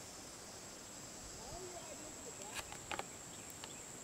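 Steady high-pitched drone of insects, with faint distant voices about a second and a half in and a few sharp clicks a little before three seconds in.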